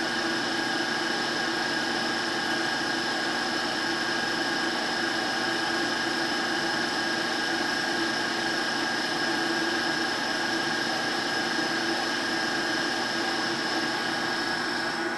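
KitchenAid stand mixer running steadily, its wire whisk attachment whipping egg whites while hot sugar syrup is streamed in to make Italian meringue. The motor hum holds a few constant tones at an even level.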